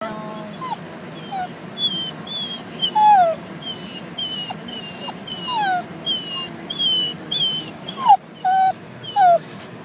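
Dog whimpering inside a car: a rapid string of short, high-pitched whines, many falling in pitch, about two a second, over the steady hum of the car.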